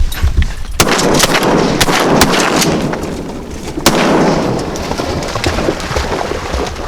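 Two shotgun blasts about three seconds apart, each with a long fading tail.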